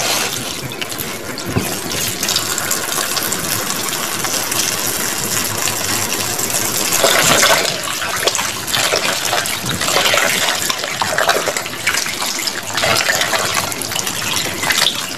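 Kitchen tap running into a plastic tub of guavas in a stainless steel sink, with hands rubbing and splashing the fruit in the water; the splashing gets louder about halfway through.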